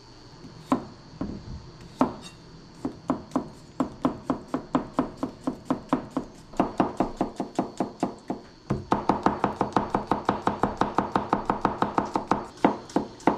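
Chef's knife slicing cucumbers on a wooden cutting board: a few separate knocks, then a steady run of quick chops, about four or five a second, that speeds up and grows louder from about nine seconds in.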